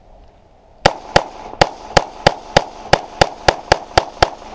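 A semi-automatic pistol fires twelve shots in a quick string, about three a second, starting about a second in.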